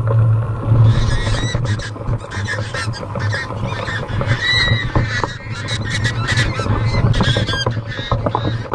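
Domestic geese honking repeatedly, loudest around the middle, over a steady low rumble of wind and mountain-bike riding noise.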